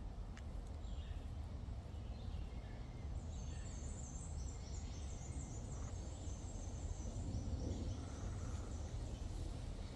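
Woodland ambience: a steady low rumble, with a small songbird singing a quick, high twittering run of notes from about three seconds in to near the end.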